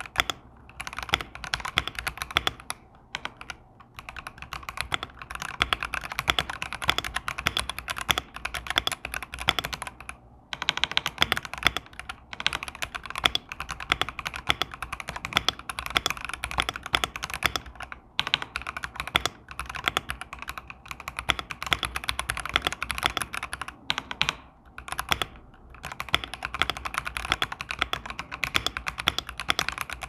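Fast typing on a Royal Kludge RK H81 mechanical keyboard with linear RK SkyCyan switches: a rapid, continuous run of keystroke clacks, with a few short pauses.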